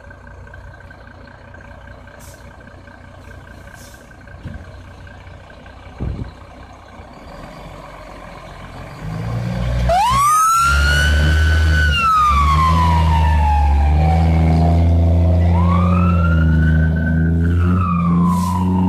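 Fire engine leaving the station: its engine rumbles loud from about nine seconds in. About ten seconds in a wailing siren starts, rising quickly, holding, then falling slowly, and it winds up and falls again near the end.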